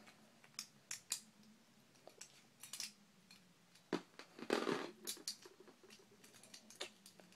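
Small Beyblade parts, a metal fusion wheel and plastic rings and tracks, clicking and knocking together in the hands as a top is assembled: scattered sharp clicks, with a brief rustling scrape about four and a half seconds in.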